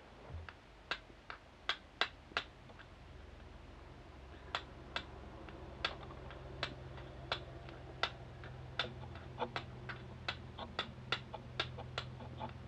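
Steel striker hitting a stone held with charcloth: a long run of sharp, irregular clicking strikes, about two a second and sometimes in quick pairs, throwing sparks onto the charcloth to catch an ember.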